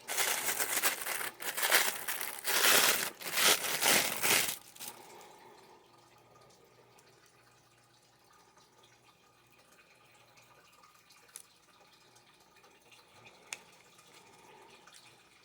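Plastic packaging crinkling as it is handled for about four and a half seconds, then near quiet with a couple of faint clicks.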